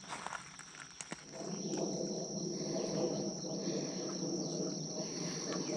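Insects trilling steadily in one continuous high note. About a second and a half in, a louder, rough low rushing noise joins in.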